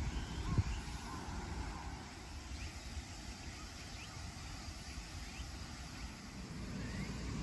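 A low, uneven outdoor rumble, with a single knock about half a second in and a few faint, short, high chirps scattered through.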